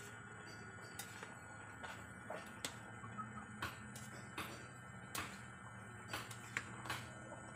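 Metal spoon clinking and scraping against the sides of an aluminium pot while a thick jackfruit mixture is stirred: irregular sharp clicks, about one or two a second.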